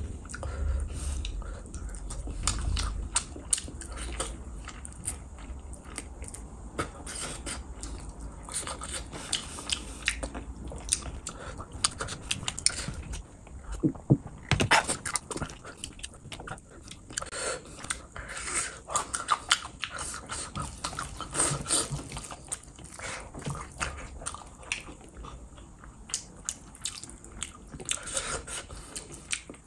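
Close-miked eating of fish curry and rice by hand: wet chewing, lip smacks and the squish of rice and gravy being mixed in the fingers. About halfway through, a few gulps from a glass.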